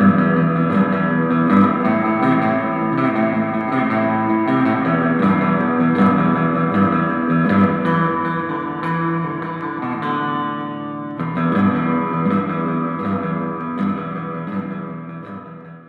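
Background music: a guitar track with a steady beat, fading out near the end.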